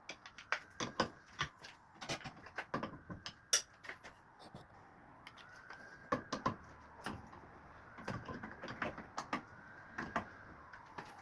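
Irregular clicks and knocks of washing machine parts and tools being handled, with a faint whine that rises and falls a few times in the second half.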